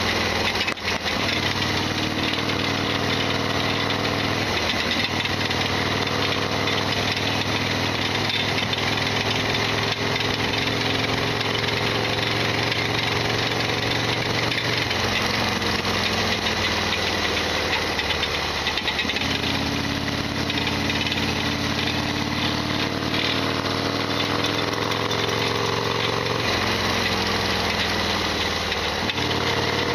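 Harley-Davidson Sportster XL1200R's air-cooled V-twin engine heard from the moving motorcycle, its note rising and falling several times with throttle and gear changes. The bike carries a loud rattling, clattering mechanical noise that the owner calls an abnormal noise.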